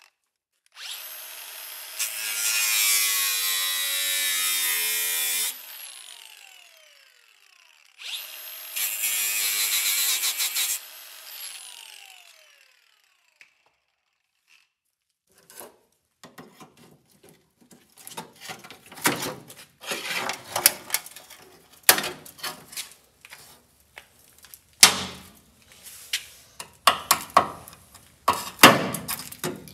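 A handheld power tool runs twice on rusted sheet-steel body metal, about four seconds and then about three, and each run winds down with a falling whine after it stops. From about the middle on come many irregular sharp scrapes and taps of a hand tool against the steel panel.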